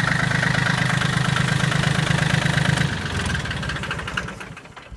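John Deere 770 compact tractor's three-cylinder diesel engine running steadily, then shut off about three seconds in and running down to a stop over the next two seconds.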